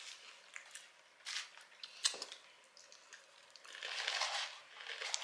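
A person chewing food with the mouth closed: small wet mouth clicks and smacks. About four seconds in comes a longer, louder patch of noise as a curly fry is dipped into a cup of ranch.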